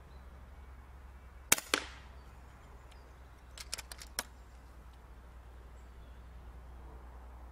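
.22 FX Indy pre-charged air rifle firing one shot: a sharp crack with a second smack a fraction of a second after it. About two seconds later comes a quick run of clicks as the side cocking lever is pulled back and pushed forward to chamber the next pellet.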